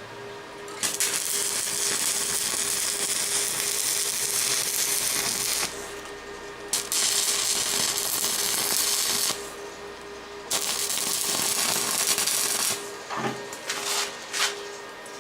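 Welding arc crackling and hissing on a steel machete blade in three runs of a few seconds each, with pauses between them, followed by a few light taps near the end.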